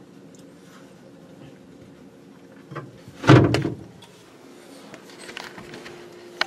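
A light knock, then a loud bump of the wooden sink-base cabinet being knocked about three seconds in, over a faint steady hum.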